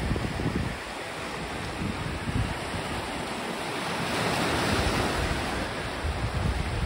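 Sea surf breaking and washing over a rocky shore, swelling to its loudest about four to five seconds in. Wind buffets the microphone in low rumbles near the start and again near the end.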